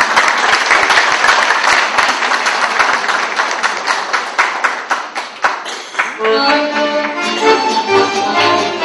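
Audience applauding for about six seconds; then two accordions start playing held chords, the introduction to a Slovak folk song.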